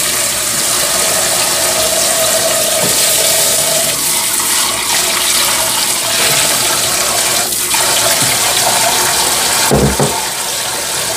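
Kitchen tap running a steady stream into a saucepan in a stainless-steel sink as it fills, with rice poured in under the stream to be rinsed of its starch. A brief low thump comes near the end.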